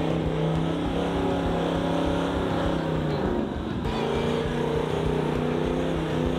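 4x4 engine running while driving, its note steady, then falling a little past the halfway mark before settling on a new, steady pitch.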